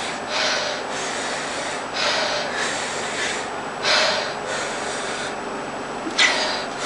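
A person breathing hard and rapidly through the mouth, a series of hissing breaths, to ease the burn of habanero peppers in the mouth.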